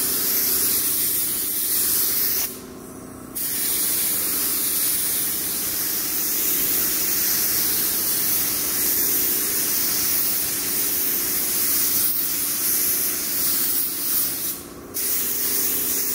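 Compressed-air hiss of a gravity-feed HVLP spray gun spraying base coat. The trigger is let off briefly about two and a half seconds in and again near the end. A steady low hum runs underneath.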